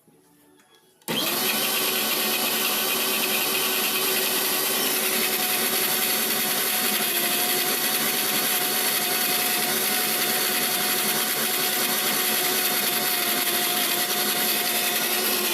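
Sansui Pro mixer grinder motor switched on about a second in, then running steadily with a high whine.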